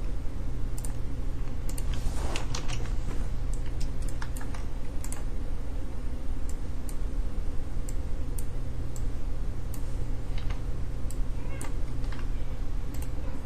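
Scattered clicks of a computer mouse and keyboard, at irregular intervals, over a steady low hum.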